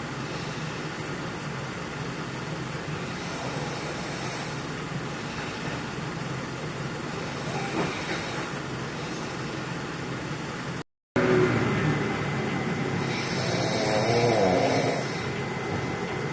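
A person snoring in sleep, a rough breath about every four seconds over a steady background hiss, with a louder, longer snore near the end.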